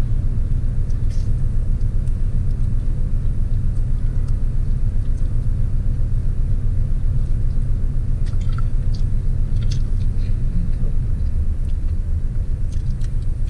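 Steady low rumble of a car's engine idling, heard inside the cabin. A few faint clicks and chewing sounds from eating noodles come through over it.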